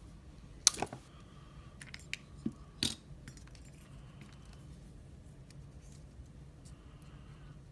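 Metallic clicks and clinks of a euro lock cylinder and its tools being handled while it is taken apart: a few sharp clicks in the first three seconds, then only faint handling.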